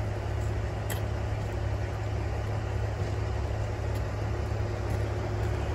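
Diesel engine of a KiHa 11 railcar idling at a station platform: a steady low drone that does not change.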